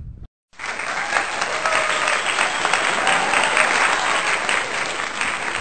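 Applause from a crowd, a dense patter of many hand claps that starts suddenly about half a second in after a moment of silence.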